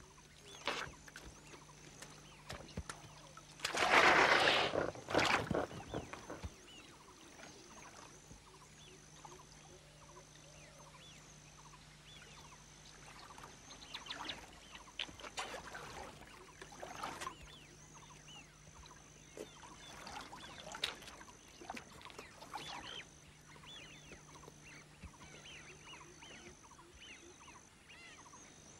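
Greater one-horned rhinoceroses splashing and wading in river shallows at the bank. There is a loud splash about four seconds in, then scattered softer splashes and sloshing.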